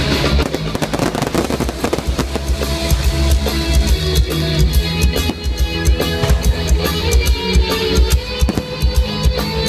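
Loud rock music with a drum kit and guitar, with fireworks popping and crackling among it.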